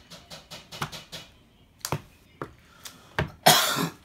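Sleeved trading cards being handled and set down on a rubber playmat: a run of sharp clicks and taps, then a louder, longer rush of noise near the end.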